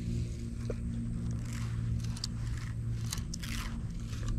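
Baitcasting reel being handled after a cast: a few scattered short clicks and scrapes over a steady low hum.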